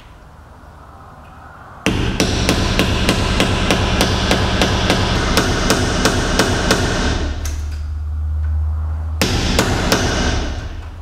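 Hand hammer striking a steel punch held against the staked rear axle nut of a BMW E39 hub: rapid metal-on-metal blows, about four a second, starting about two seconds in, breaking off briefly after the middle and resuming near the end. The blows knock the nut's staked collar out of the axle groove so the nut can be undone.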